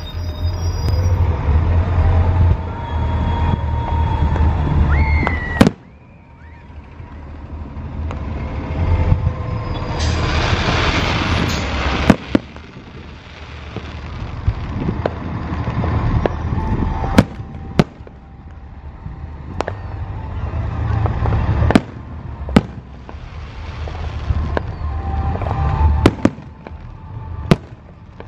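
Aerial fireworks bursting overhead: sharp bangs every few seconds, each followed by a low rolling rumble that builds and fades, with a stretch of hiss about ten seconds in.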